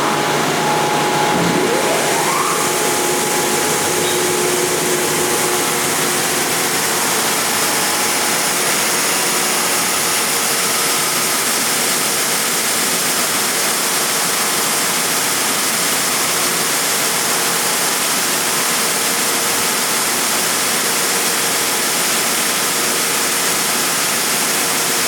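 Timesaver 137-2 HD dual-head wide belt sander starting up: its drive motors spin up with two rising whines in the first couple of seconds, then the machine runs at a loud, steady pitch.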